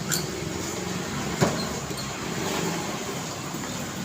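Street traffic: cars running by with a steady engine hum and tyre noise, and one sharp click about a second and a half in.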